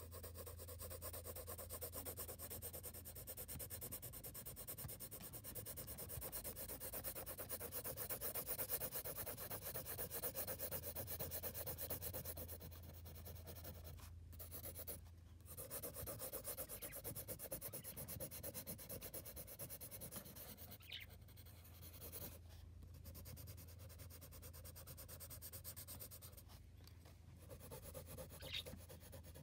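Wooden graphite pencil shading on paper: continuous quick back-and-forth scratching strokes, broken by a few short pauses where the pencil lifts off.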